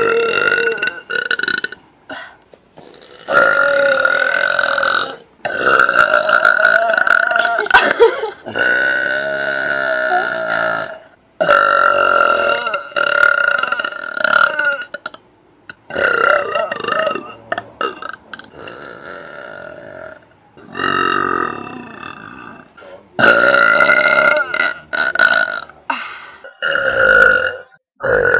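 Girls belching loudly: a string of long, drawn-out belches one after another, several of them lasting two to four seconds, with short breaks between.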